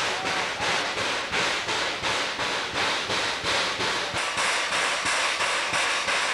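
Steam locomotive exhaust chuffing in an even rhythm of about three beats a second.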